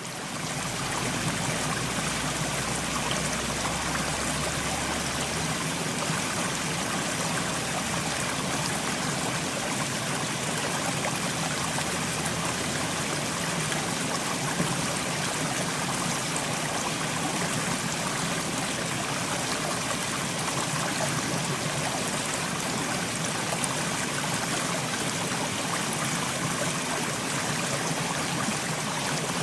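Mountain stream running: a steady, even rush of flowing water, fading in over the first second.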